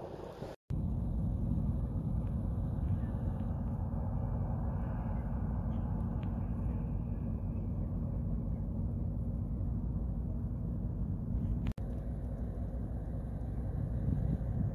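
Steady low rumble of wind buffeting the microphone, which cuts out briefly twice, about half a second in and near the end.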